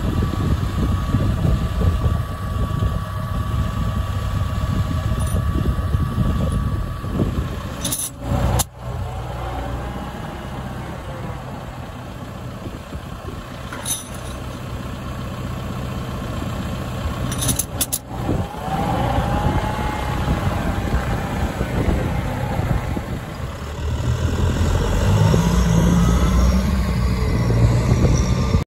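Massey Ferguson 6455 tractor's four-cylinder diesel engine running, with a steady high whine over it for the first several seconds. Near the end the engine speed rises in steps as the tractor pulls away.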